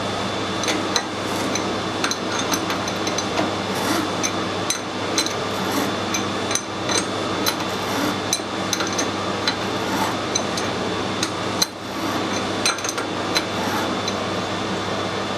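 Threading die cutting a 1/4 BSP parallel thread on a brass bar: irregular sharp metallic clicks and ticks, a few a second, from the die and its holder working on the brass, over a steady background hum.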